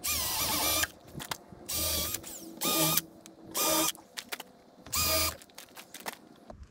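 Cordless drill with a countersink bit boring pilot holes in a door jamb. It runs in five short bursts, each under a second, with a motor whine between pauses.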